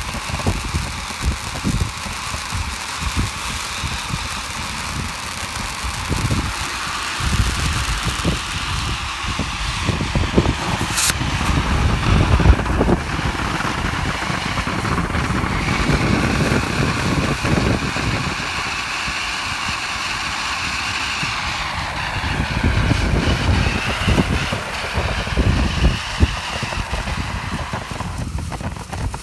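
Pink and blue firework fountains burning, a steady rushing spray of sparks with scattered crackles, over an irregular low rumble.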